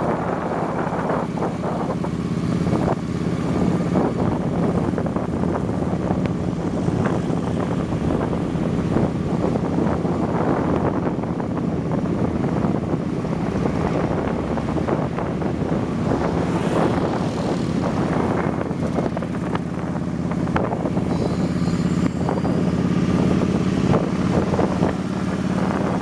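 Wind buffeting the microphone of a moving motorbike, over the steady hum of its engine.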